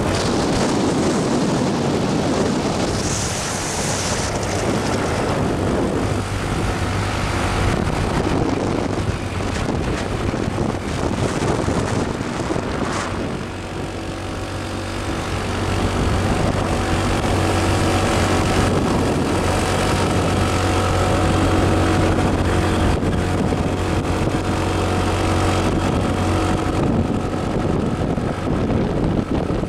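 Motorcycle engine running steadily while riding, with wind buffeting the microphone. The engine's hum becomes steadier and clearer about halfway through.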